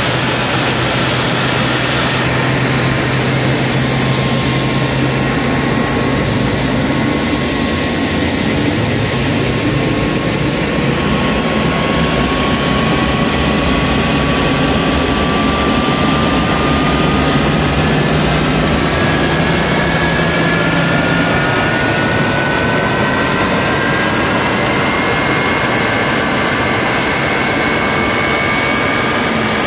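Rolls-Royce/Snecma Olympus 593 turbojet spooling up on a pneumatic start: a loud, steady rush of air with thin whines that climb slowly in pitch from a few seconds in, under the running noise of the APU that supplies the starter air.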